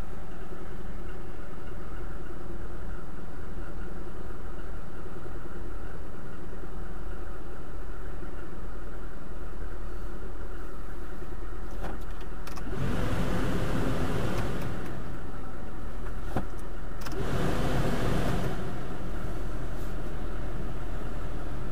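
Lada Kalina's four-cylinder petrol engine idling from cold in hard frost, heard from inside the cabin. About 13 and 17 seconds in come two stretches of louder rushing noise, a couple of seconds each.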